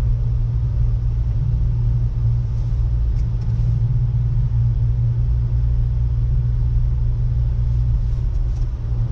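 A car driving at a steady speed, heard inside the cabin: a steady low rumble of engine and road noise.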